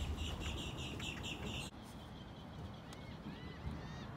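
A bird calling in a quick series of short chirps, about four a second, over a low rumble. The sound cuts off abruptly about a second and a half in, leaving quieter ambience with a few faint whistled bird calls near the end.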